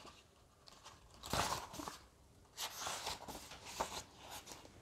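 Paper pages of a hardcover book being turned by hand: a short rustle about a second in, then a longer stretch of uneven page rustling from about halfway.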